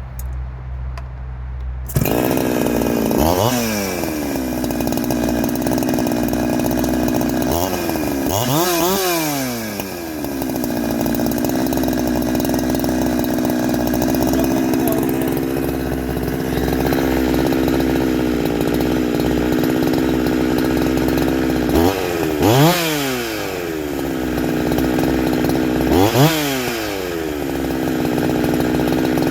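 Two-stroke chainsaw with a shotgun-style pipe muffler coming in loudly about two seconds in, then idling with a steady note. It is blipped to high revs several times, each rev rising and dropping back to idle, as the jets are checked after the muffler change.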